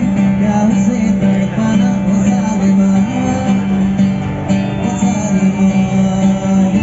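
Live acoustic guitar with a man singing into a microphone, amplified through a small speaker.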